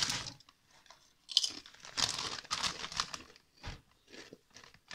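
Plastic snack bag crinkling in short bursts as it is handled, then quieter crunching and chewing of a crunchy snack near the end.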